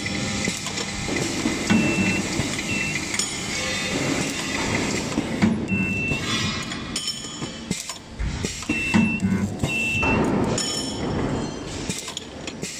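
Automatic nut spot welding machine cycling: pneumatic electrode strokes and air hiss with sharp weld clicks, one of them throwing sparks about halfway through. Short, high, one-pitch beeps recur several times, over a workshop's steady machine noise.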